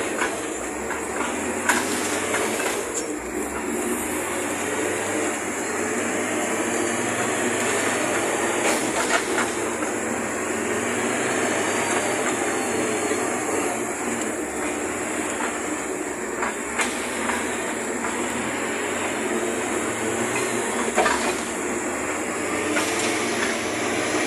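Diesel engine of an articulated log skidder running steadily as the machine drives, with a few sharp knocks and clanks from the frame.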